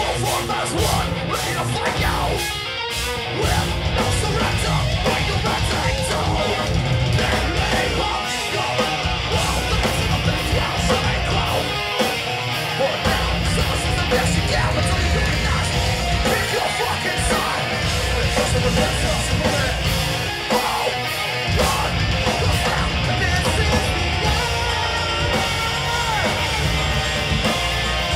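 Progressive metal band playing live: heavy distorted guitars, bass and drums, with a vocalist shouting over them. The bass and drums drop out briefly a few times.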